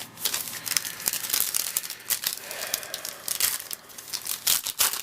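Foil wrapper of a baseball-card pack being torn open and crinkled by hand, a dense run of irregular crackles.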